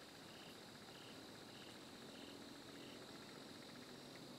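Faint evening insect chorus: a steady high-pitched drone with a short chirp repeating about every half second, which stops about three seconds in. A faint low hum comes in during the second half.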